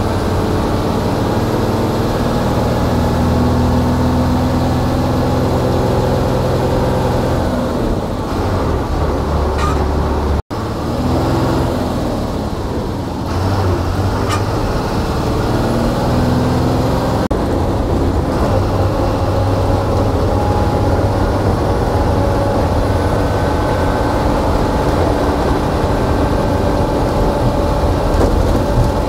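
KSRTC deluxe air bus under way: the engine runs steadily with road noise, its pitch shifting up and down with engine speed. The sound drops out for an instant about ten seconds in.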